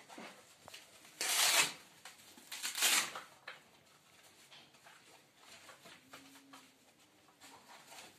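A cloth blood pressure cuff being handled and wrapped around an arm: two loud rasping rustles, about one and three seconds in, then quieter rustling.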